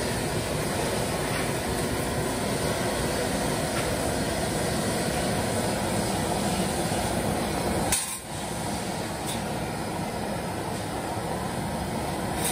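Steady rushing roar of a gas burner flame heating leaf-spring steel chaff-cutter blades for tempering, with a brief break about eight seconds in.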